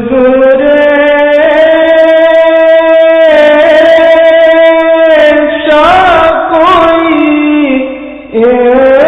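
A naat, an Urdu devotional song in praise of the Prophet, sung solo with long held notes, a short ornamented run in the middle, and a brief break before a new phrase near the end.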